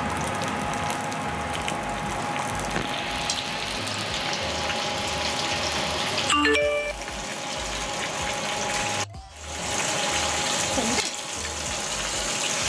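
Quail deep-frying in desi ghee in a kadai: a steady sizzling hiss of the hot fat. About six seconds in, a short chime-like jingle rings briefly over it.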